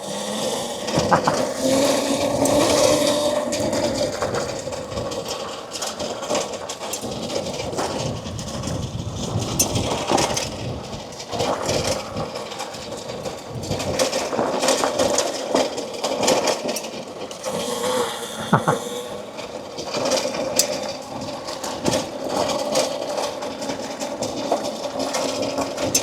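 Mini bike's small engine running as it pulls away and is ridden over an off-road trail, with scattered knocks and rattles from the bike.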